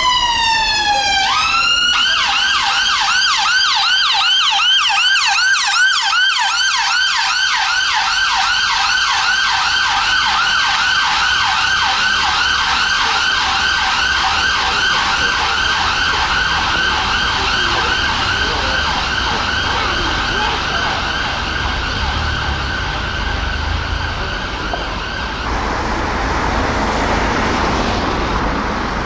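Ambulance siren: a slow falling wail swings back up into a fast, repeating yelp that runs steadily, then cuts off abruptly near the end, leaving road traffic noise.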